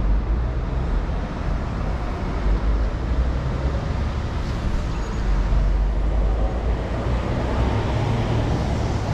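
Road traffic noise: a steady rumble of city traffic with no distinct events.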